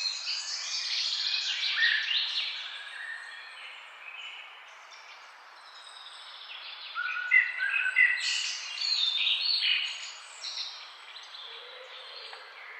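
Songbirds singing in quick chirping phrases over a steady hiss, in two busy bouts: through the first three seconds and again from about seven to ten seconds in, with a quieter lull between.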